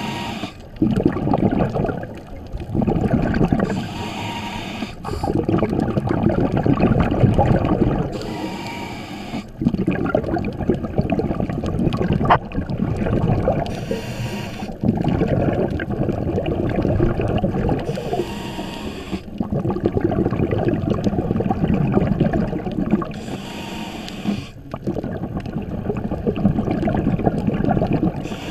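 Underwater sound picked up by a submerged camera: a steady muffled rumble of moving water, with a hissing rush of bubbles from scuba divers' exhaled air about every four to five seconds.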